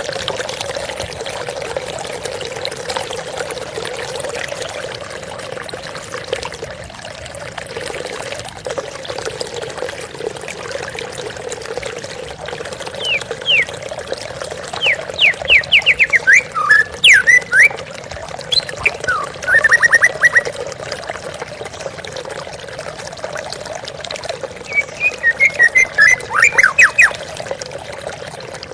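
Steady flowing, trickling water. A songbird sings over it in three loud bursts of quick sweeping whistled notes and trills: about halfway through, again a moment later, and near the end.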